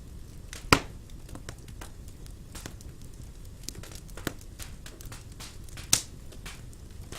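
Wood fire burning in a fireplace: a low steady rumble of flames with scattered small crackles and two loud pops, about a second in and near the end.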